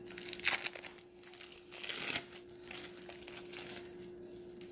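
Plastic cheese packaging crinkling as it is handled, in a few short rustles, the loudest about half a second and two seconds in.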